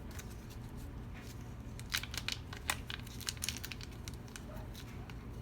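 Light crinkling and a flurry of small sharp clicks as thin lock shims are picked out and handled, busiest in the middle.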